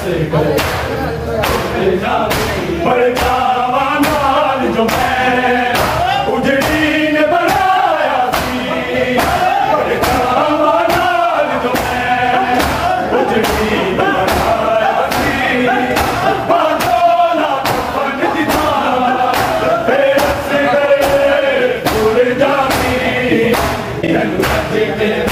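Men chanting a noha in chorus, with a steady beat of open-hand slaps on bare chests (matam), a little over one a second.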